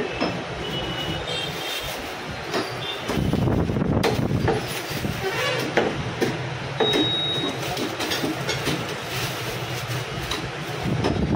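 Steady rumble of passing road traffic, heavier from about three seconds in, with scattered sharp knocks of a butcher's cleaver chopping mutton.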